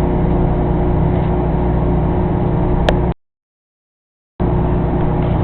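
Microwave oven running with a steady, droning hum. There is a single sharp click about three seconds in. The sound then cuts out to dead silence for just over a second before the same hum resumes.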